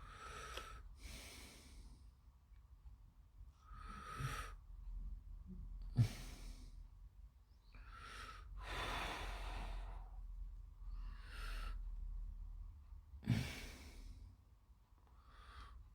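Close, slow breathing, about eight soft breaths spread through, with a few small sharp knocks in between, over a faint steady hum.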